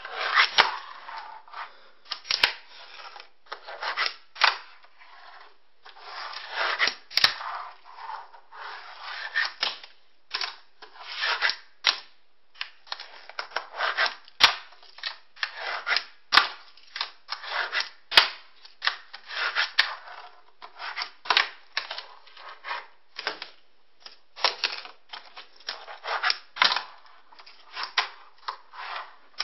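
Fingerboard tricks on a wooden sill: sharp clacks of the tiny board popping and landing, in an irregular run, between short stretches of its wheels rolling on the wood.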